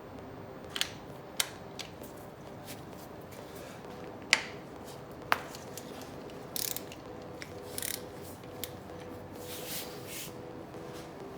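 Hand tools unbolting the timing-chain sprockets and tensioner on an Audi 3.2 VR6 engine: a ratchet wrench clicking in short runs, with scattered sharp metal clinks. Two louder clinks come about four and five seconds in.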